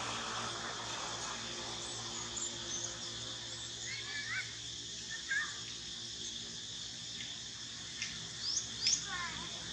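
Forest ambience: a steady high drone of insects with a faint low hum beneath, and a few short bird chirps, some about four seconds in and a louder cluster near the end.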